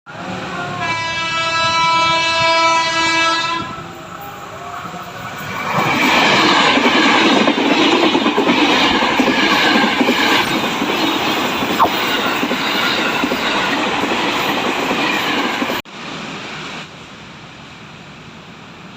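KRL electric commuter train sounding its horn once for about three seconds, then passing close by with loud rumble and clatter of its wheels on the rails. The passing noise cuts off suddenly about three seconds before the end, leaving a quieter steady background.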